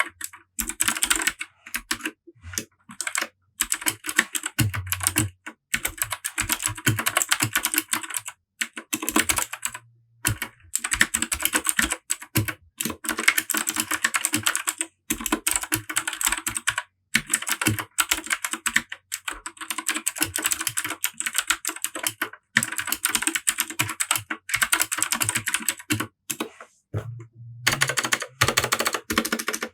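Fast typing on a Royal Kludge RK100 mechanical keyboard with Gateron Blue clicky switches: dense runs of sharp, loud clicks in bursts with brief pauses between words and phrases.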